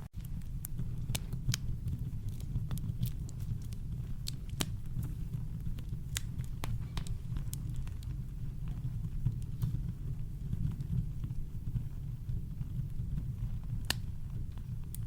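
Campfire crackling: irregular sharp pops and snaps over a steady low rumble of brown noise, with one louder pop near the end.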